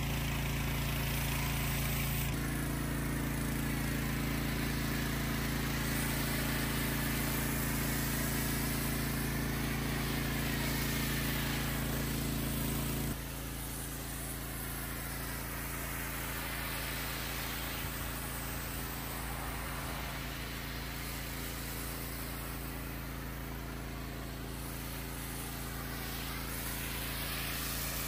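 Pressure washer running steadily, powering a foam cannon that hisses as it sprays snow foam onto a car. The machine's hum shifts slightly a couple of seconds in and drops lower about halfway through.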